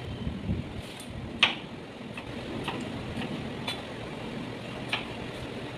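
Kitchen knife slicing tomatoes on a cutting board: a series of irregular taps as the blade hits the board, the loudest about one and a half seconds in, over a steady low background hum.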